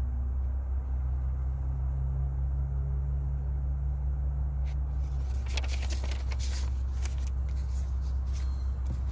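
Paper rustling and crackling from about five seconds in as pages of a document binder are handled, over a steady low hum.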